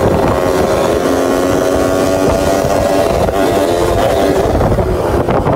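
Motorcycle engine running steadily, with wind noise on the microphone.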